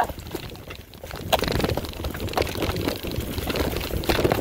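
Mountain bike rolling over a rough dirt trail: irregular clicks and knocks of tyres and frame over the ground, with a steady low rumble.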